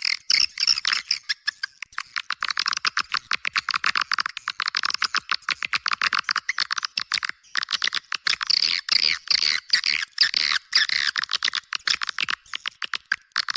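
Swiftlet call recording used as a lure track for swiftlet houses: many swiftlets chittering and twittering in a fast, unbroken stream of clicks and chirps, with almost no low end.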